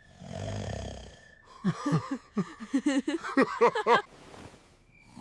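A cartoon snore lasting about a second, followed by about two and a half seconds of fast, squeaky, warbling vocal sounds that swoop up and down in pitch.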